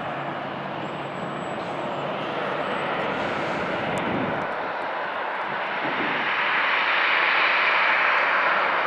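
Boeing 737-700's CFM56-7B turbofan engines running at taxi power, a steady jet hiss and rumble. It grows louder and brighter from about six seconds in as the airliner turns and its engine intakes swing round to face the listener.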